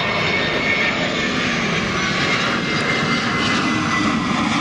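Airbus A320-family airliner on final approach with its landing gear down, jet engines running with a steady rushing noise and a thin high whine.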